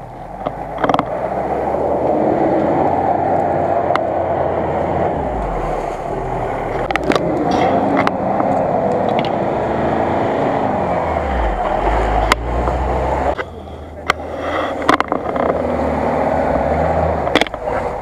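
Engines of off-road 4x4s, a Mitsubishi L200 pickup and then a Suzuki, running at low revs as they crawl up a rough forest track close by, with several sharp cracks and knocks. The engine noise swells as a vehicle nears and dips briefly about two-thirds of the way through before the next one comes on.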